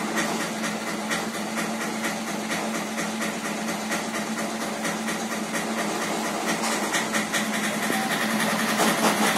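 A machine running steadily: an even hum with fast, fine ticking over it.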